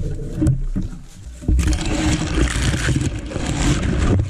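Footsteps thudding on the forest floor, then from about a second and a half in a loud, continuous rustling of conifer branches brushing against the carrier and the log as he pushes through them.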